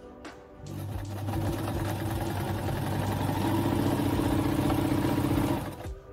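New Home 690 Heavy Duty sewing machine running, stitching a pattern stitch through denim. It starts up about a second in and stops shortly before the end.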